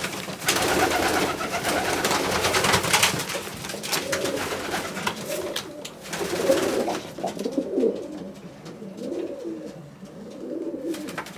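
Racing pigeons cooing in a small loft, with loud rustling and clattering over the first seven seconds or so before the cooing carries on alone.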